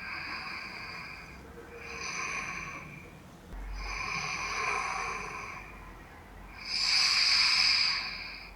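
A sleeping man breathing loudly and heavily while wearing a head-worn anti-snoring strap: four long, hissy breaths, the last the loudest, with no snoring rumble. The strap has largely stopped his snoring, leaving only loud breathing.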